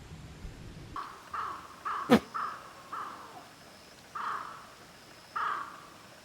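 A crow cawing: a series of short, harsh caws, with one sharp knock about two seconds in.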